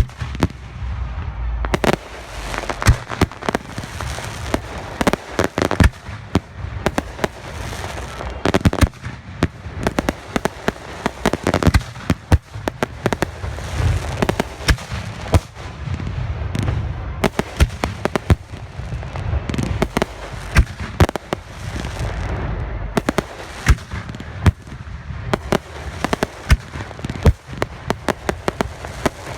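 Fireworks display at close range: a rapid, irregular string of loud aerial shell and salute bangs over continuous crackling and rumbling.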